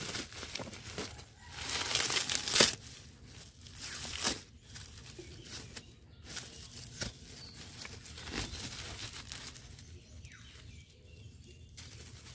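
Plastic bubble-wrap packaging crinkling and rustling as it is pulled off a selfie stick by hand, in uneven handfuls. The loudest crackle comes about two and a half seconds in, and the rustling is softer and sparser in the second half.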